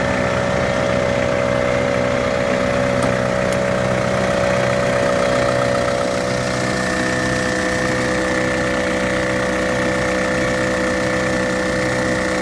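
Off-road 4x4 engine idling steadily, with a steady whine held over it.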